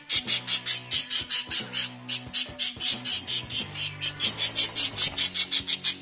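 Small caged parrots calling in a rapid, shrill, evenly repeated chatter, about five calls a second, over low sustained tones.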